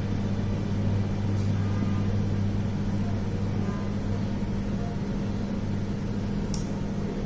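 A steady low hum.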